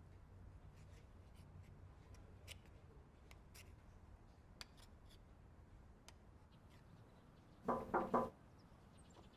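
Quiet room tone with faint scattered clicks, then three quick knocks on a door near the end.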